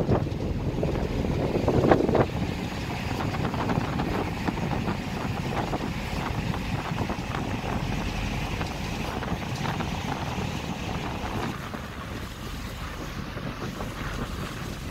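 Wind gusting on the microphone aboard a moving passenger ferry, over a steady rush of engine and water noise. The gusts are strongest in the first couple of seconds, and everything eases a little about twelve seconds in.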